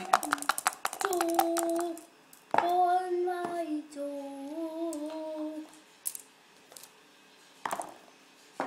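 A child singing a wordless tune in long, slightly wavering held notes, in three phrases. After that come a few separate sharp clicks of backgammon dice knocking in a leather dice cup as it is shaken and the dice are rolled onto the board.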